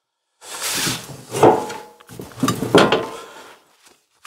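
Steel mower cutter deck being pushed and scraped into place under a small tractor's chassis: metal clanking and grating against metal and wood in three bursts, one with a brief metallic ring.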